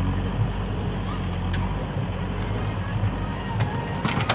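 Diesel engine of a JCB 3DX backhoe loader running steadily, with a few sharp clicks near the end.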